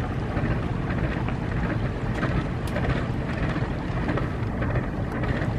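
Diesel locomotive engine running with a steady low rumble as the locomotive reverses along the track, with wind buffeting the microphone.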